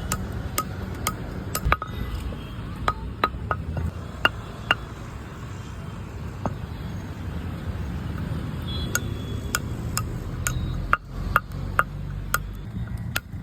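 Stone grinding slab and roller (pata varvanta) being worked: a steady low grinding rumble with irregular sharp knocks and clinks of stone on stone.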